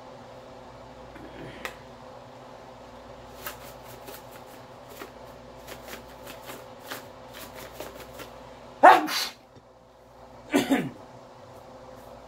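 Spice jar of garlic shaken over a frying pan of ground beef, a run of light, irregular ticks and rattles. Near the end come two loud, short vocal bursts from the man, about two seconds apart.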